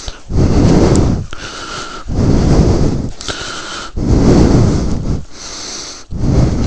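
A person breathing heavily and out of breath, close to the microphone. Four loud exhales come about every two seconds, with wheezy, whistling inhales between them.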